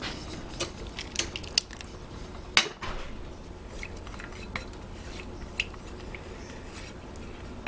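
Scattered light clinks and knocks of kitchenware as a wet egg mixture is poured from a glass bowl into a stainless steel mixing bowl of flour and diced apples, with one louder knock about two and a half seconds in. A low steady hum runs underneath.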